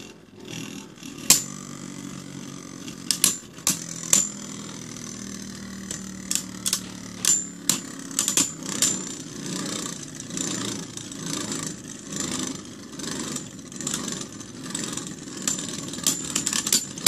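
Two Beyblade Burst tops, Kerbeus Wing Fusion and Spriggan Heavy Defense, spinning in a stadium after launch. They whir steadily and clack sharply each time they collide, and the clacks come more often in the second half.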